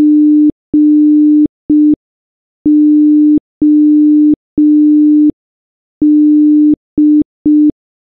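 Morse code beeps spelling G-O-D: one steady electronic tone keyed in dash-dash-dot, dash-dash-dash, dash-dot-dot, with a short pause between letters.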